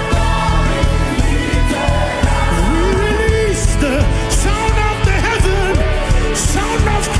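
Gospel worship music: a voice singing a gliding melody over a band with a steady low bass.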